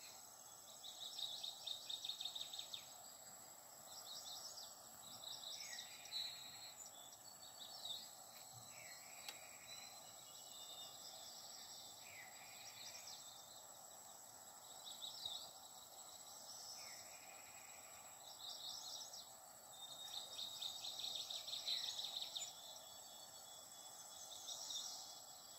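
Embroidery thread being drawn through linen with a needle: a faint, scratchy rasp, repeated in short pulls of a second or two, stitch after stitch. A faint steady high whine runs underneath.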